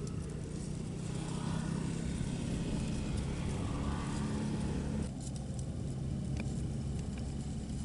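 A motor vehicle passing close by, a low engine and tyre rumble that drops away abruptly about five seconds in, followed by a few faint clicks.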